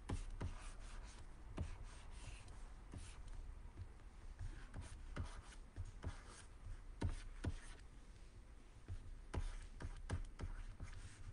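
Pen stylus scratching and tapping on a graphics tablet in short, irregular strokes while sketching, faint.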